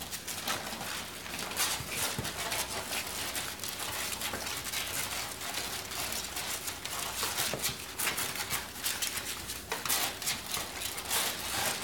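Doberman puppies suckling from their mother: a dense, irregular run of small clicking, smacking sounds.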